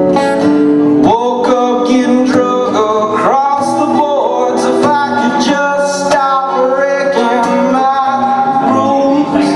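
A man singing live while strumming a steel-string acoustic guitar, holding long sung notes over a steady strum.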